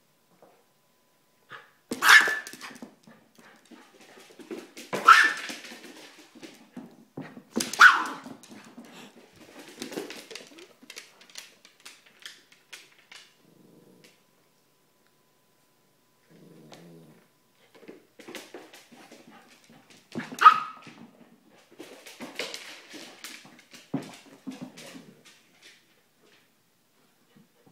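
A dog barking: four loud, sharp single barks, the first three about three seconds apart and the fourth about twenty seconds in, with quieter scattered sounds between them.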